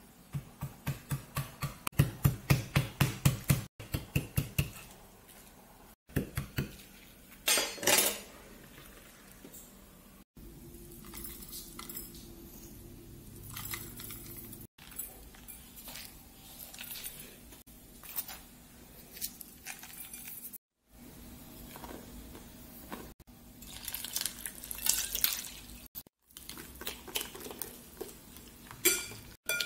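Kitchen work sounds: the back of a knife pounding napa cabbage stems on a wooden cutting board, a quick run of knocks about five a second; then light handling of the leaves; near the end a whisk scraping and clinking in a glass bowl as pancake batter is mixed.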